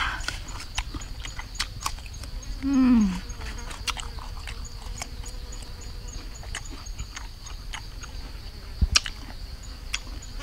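Person eating crunchy sour fruit: irregular crisp bites and chewing clicks, with one short falling "mm" hum about three seconds in and a sharper crack near the end.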